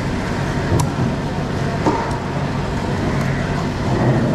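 Steady din of a busy fish market with a low motor hum underneath, and two sharp knocks, about a second and two seconds in, from a large knife chopping skipjack tuna on a wooden block.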